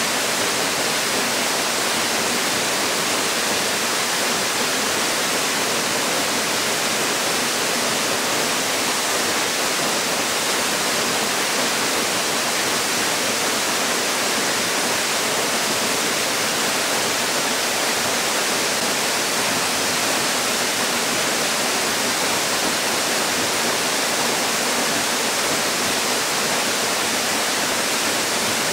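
Waterfall pouring steadily into its pool: an even, unbroken rush of falling water.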